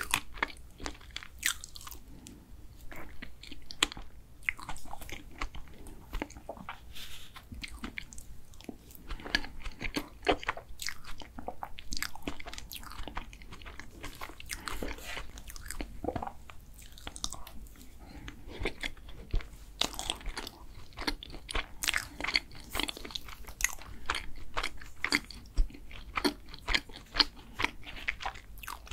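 Close-miked chewing of ice cream and chocolate cake: many irregular wet mouth clicks and smacks, coming thicker in the second half.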